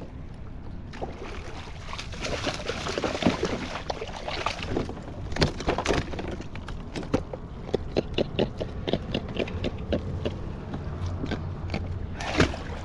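Water sloshing and splashing against a kayak, with a run of small clicks and knocks.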